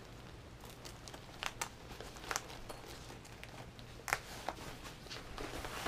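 Nylon fabric and plastic rustling and crinkling as a sewn fabric travel desk is handled, with a few short, sharp crackles scattered through.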